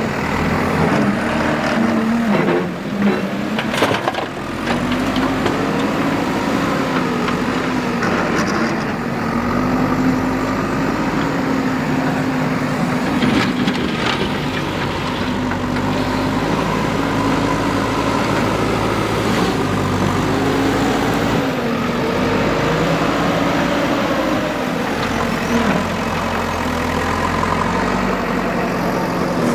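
JCB 3DX backhoe loader's diesel engine working under varying load, its pitch rising and falling as it digs and lifts. A few sharp knocks are heard, twice near the start and once about halfway through.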